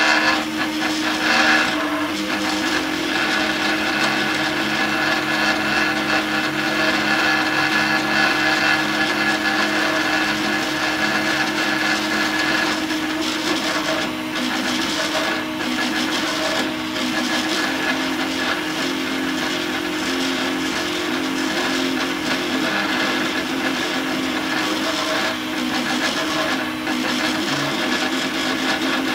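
3D printer running a print: its stepper motors whine in several tones that shift every second or so as the axes change speed, over a steady hiss.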